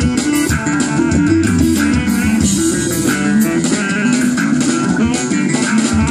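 Live band playing an instrumental passage: guitar and bass lines over a drum kit and keyboards, with a steady beat.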